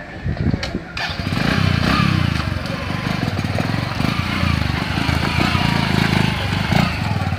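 A small engine running, close and fairly loud, coming in about a second in and then holding steady with a fast, even pulsing.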